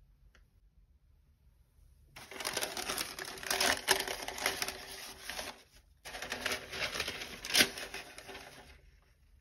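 Thin white wrapping paper crinkling and rustling as gloved hands fold it over in a cardboard shoebox. There are two bouts of crackly crinkling, starting about two seconds in, with a brief pause between them.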